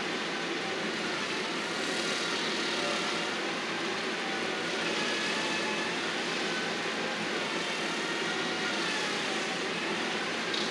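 Engine of heavy landscaping equipment running steadily, with a faint wavering whine above the engine noise.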